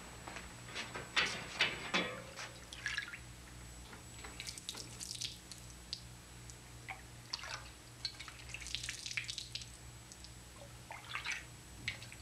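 Ritual metal vessels and water being handled: scattered faint clicks and light dripping, splashing sounds at irregular intervals over a steady low hum.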